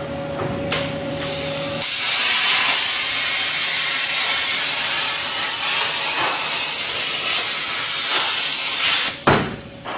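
Hypertherm HT2000 high-speed plasma torch on a Multicam CNC table cutting quarter-inch mild steel plate with oxygen plasma: the hiss builds, then about two seconds in it becomes a loud, steady hiss of the cutting arc. The arc stops sharply about nine seconds in and is followed by a short low burst.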